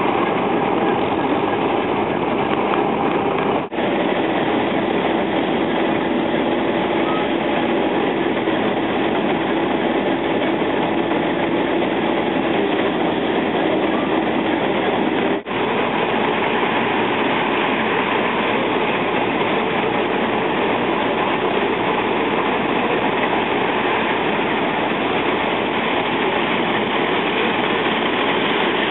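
Steam-driven wheat threshing machine running steadily under load, a dense rattling clatter with a faint steady hum from its straw blower. The sound cuts out for an instant twice.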